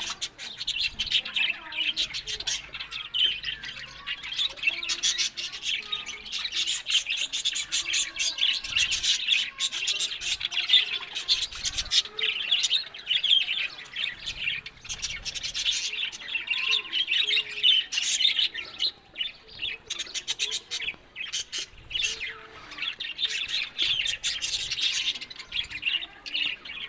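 Budgerigars chattering and warbling continuously, with rapid chirps, clicks and squawks; the chatter eases briefly about two-thirds of the way through.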